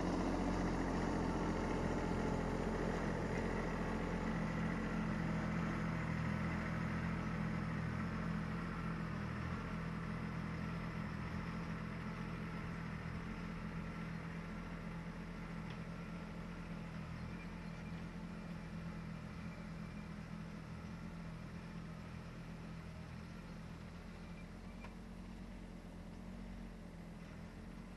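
Branson 2400 compact tractor's three-cylinder diesel engine running steadily while pulling a middle buster through garden soil, growing steadily fainter as the tractor moves away.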